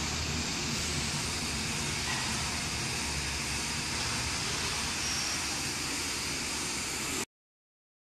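Vertical flat-glass washing machine running: a steady mechanical hum with a hiss over it, which cuts off abruptly about seven seconds in.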